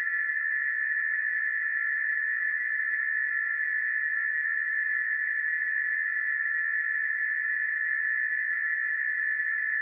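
Emergency alert alarm tone sounding continuously at one steady high pitch, unbroken and unchanging in level.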